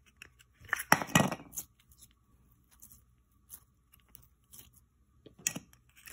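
Glitter putty squished and pulled between fingers, making sticky, wet clicks and squelches, with a loud cluster about a second in and scattered softer clicks after.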